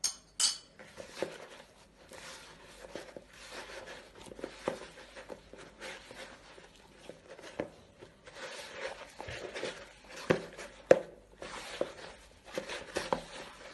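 A hand kneading and gathering sticky flour-and-water dough in a plastic bowl: irregular scraping and rubbing, with scattered knocks of hand and dough against the bowl, the sharpest about half a second in and near eleven seconds. The loose flour is being worked into the dough at the first mixing stage.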